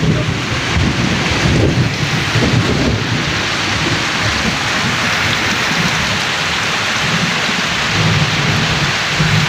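Heavy rain pouring down in a loud, steady hiss, with irregular low rumbling underneath.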